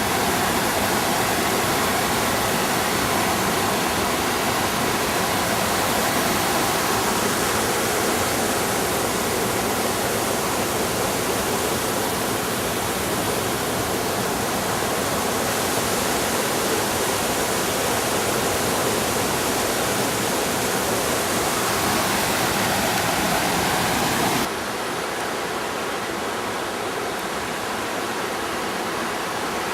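Steady rushing water, a dense even roar like a waterfall or fast mountain stream. About three-quarters of the way through it drops a little in level and turns duller.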